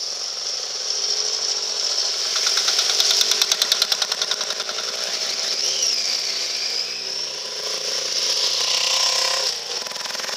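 Motorcycles riding through a shallow ford one after another, their engines running with a rapid, even pulsing loudest about three seconds in as a bike passes close. Water splashes and hisses as the wheels push through the ford.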